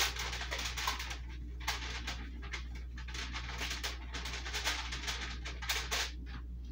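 Marker writing on the aluminium foil covering a baking pan: a run of short, irregular scratchy strokes, over a steady low hum.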